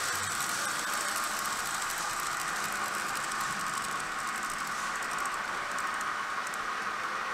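Märklin Z scale model train running along its track, a light rapid rattle of tiny clicks that fades near the end, over a steady hum of hall noise.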